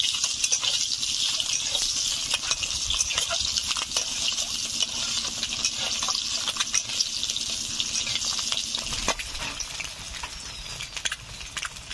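Peeled boiled eggs frying in hot mustard oil in a kadai: a steady sizzle with crackles. The sizzle drops away sharply about nine seconds in.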